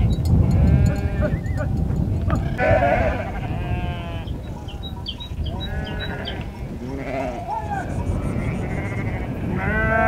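Sheep bleating several times, calls of differing pitch from more than one animal, over steady low background noise.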